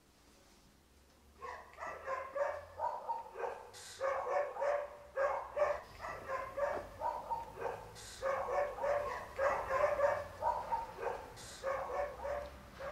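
A dog barking in rapid runs of short yaps, several a second with brief pauses between runs, starting about a second and a half in.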